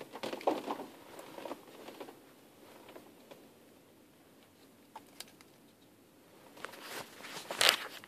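Scattered clicks and rustling from fingers pressing the buttons of a BMW E53 MID radio unit and handling its plastic housing, with a quiet stretch in the middle and a louder sharp knock near the end.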